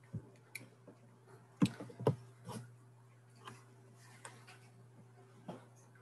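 Scattered light clicks and knocks, about eight of them, the loudest pair a little before and after two seconds in, over a steady low hum.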